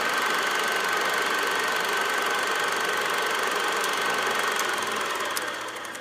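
Steady machine-like running noise with a thin, high steady tone in it, fading toward the end.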